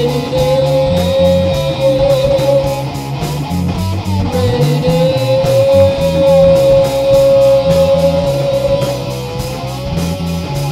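Heavy hard rock music: a lead guitar holds long, slightly bending notes over a repeating low riff, with drums ticking steadily underneath.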